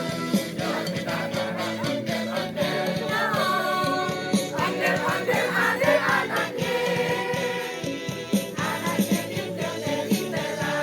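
A choir singing a song, several voices together with music behind them.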